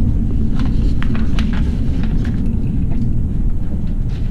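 Steady low rumble of a train in motion, with scattered short clicks and rattles.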